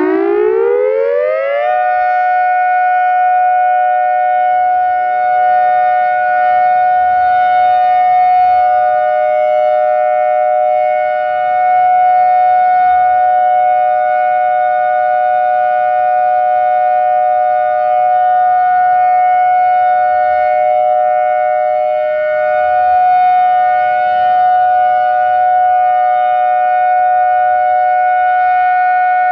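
Whelen Vortex R4 "Thunder" outdoor warning siren, fitted with a special extra low tone, finishing its wind-up with a rising pitch over the first two seconds. It then holds a steady multi-tone chord for the alert signal, its loudness swelling and dipping slightly every few seconds.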